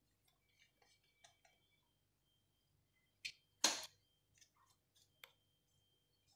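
Thin warqa pastry sheet rustling briefly as it is laid over the pastilla filling, with a few faint light ticks and clicks.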